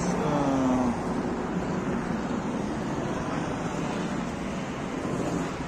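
Street traffic noise: a steady rumble and hiss of cars on the road. It is a little louder in the first second, where a short droning tone is heard.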